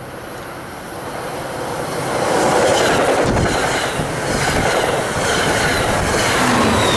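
NJ Transit Aqua Train passing at speed: it grows louder as it approaches, then the coaches rush past with wheel clatter. Near the end the GP40FH-2 diesel locomotive at the rear comes by.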